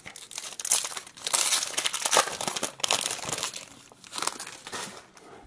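Plastic wrapper of a trading-card pack crinkling as it is handled and opened, irregular crackling that is loudest in the middle and tails off near the end.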